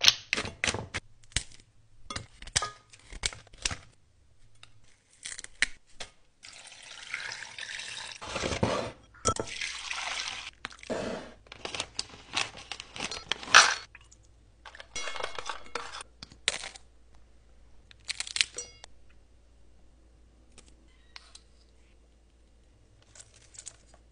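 Kitchen food-prep sounds in quick succession. Prawn shells are handled in a stainless steel pot with sharp clicks and knocks, and liquid is poured and splashes for a few seconds around the middle. Scattered lighter clicks and knocks follow, getting quieter toward the end.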